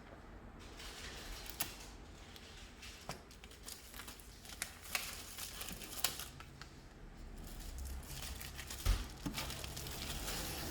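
Wrapping on an iPad box being pulled and torn off: crinkling and tearing with scattered sharp crackles, and a low thump near the end.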